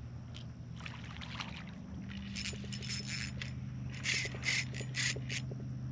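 Water splashing in several short bursts as a hooked red drum thrashes at the surface near the boat, over a steady low hum.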